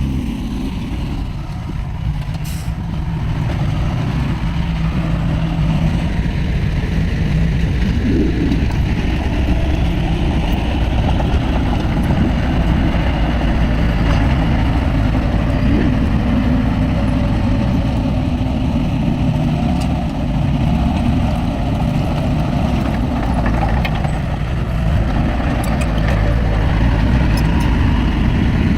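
Heavy diesel engine of earth-moving machinery running steadily under load, swelling over the first few seconds and then holding.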